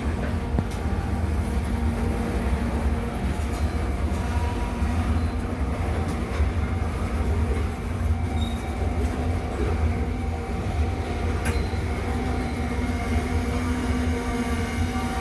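Norfolk Southern freight train running steadily: a loud, even low rumble of locomotives and cars, with a few thin, steady tones on top.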